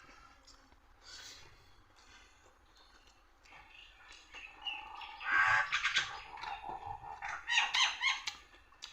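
A chicken calling twice, each call a loud pitched cry of a second or so, the first about five seconds in and the second near the end.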